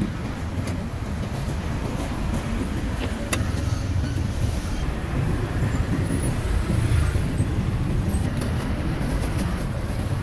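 Steady low rumble of street traffic, with a sharp click about three seconds in.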